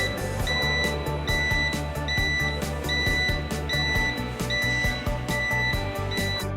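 Background music with a steady beat, over a high electronic beep that repeats evenly about every 0.8 seconds and stops near the end.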